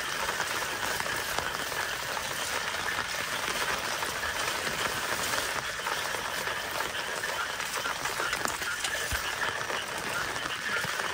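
Steady hiss of monsoon rain and vegetables frying in a pan, with frogs croaking throughout.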